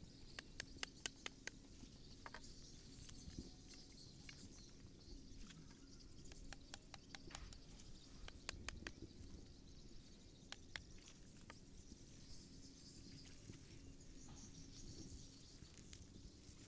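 Mostly quiet, with scattered sharp clicks and crackles from a bamboo pole being pushed and worked into a grassy, marshy bank. The clicks are thickest in the first second and a half and again about seven to nine seconds in.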